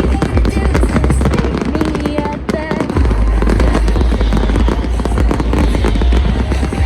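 Dense fireworks crackling and banging, with loud music and heavy bass underneath; the bangs ease off briefly about two and a half seconds in, then come back just as thick.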